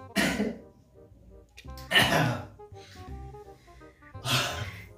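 Three short, sharp breathy bursts from a person, about two seconds apart, like hissing exhales or coughs at the burn of a very hot chili, over background music.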